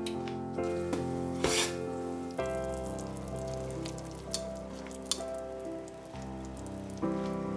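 Soft instrumental music of sustained chords, over a light sizzle from a simmering mushroom sauce in a stainless steel pan. A few brief clicks sound as metal tongs set slices of pork into the pan.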